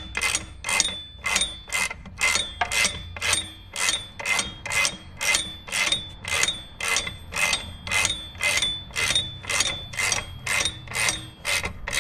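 Ratcheting wrench being swung back and forth to undo a rear engine mount bolt, the pawl rasping on each return stroke in an even rhythm of a little over two strokes a second.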